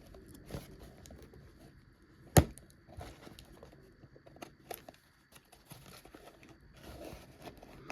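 Toy packaging being handled: light crinkling and rustling with scattered small clicks, and one sharp click about two and a half seconds in.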